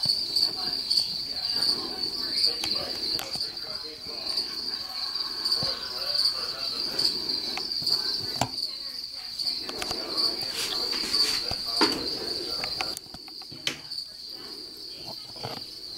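A steady high-pitched insect trill, with scattered clicks and taps over a low rustle that quietens about three seconds before the end.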